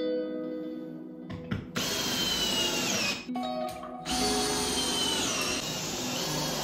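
Cordless drill driver run twice, driving screws into wooden ceiling battens; each run lasts about a second and a half, its motor whine dropping in pitch near the end as the screw seats. Background music plays underneath.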